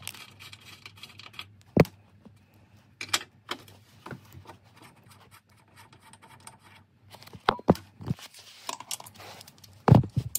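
Hand tools working the 18 mm front nuts of a Volvo torque rod mount: scattered metallic clicks and scraping, a sharp knock about two seconds in, and louder metal clanks near the end.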